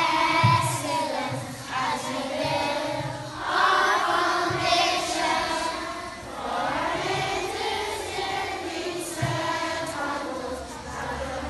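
A large group of schoolchildren singing together as a choir.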